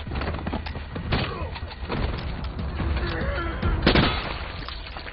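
Movie sound effects of a violent hand-to-hand fight: a series of sharp cracks and blows, the loudest about four seconds in, with strained men's voices and a steady low rumble underneath.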